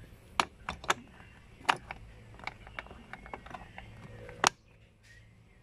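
Hard plastic clicks and knocks as a fog light rocker switch is handled and pressed back into the Suzuki S-Presso's dashboard switch panel. The clicks are irregular, and one loud snap comes about four and a half seconds in as the switch seats.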